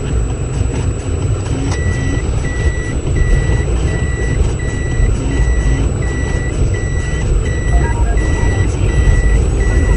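Vehicle warning beeper sounding a single steady tone about every 0.7 seconds, starting about two seconds in, over a low engine rumble.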